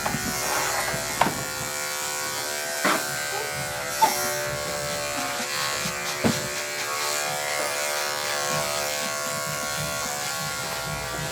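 Electric dog grooming clippers running with a steady buzz as they cut down a matted coat, with a few sharp knocks from handling.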